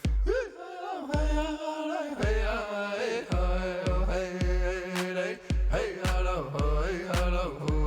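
Chant-like singing over a steady low drumbeat, about two beats a second, the voice gliding up and down in pitch between held notes.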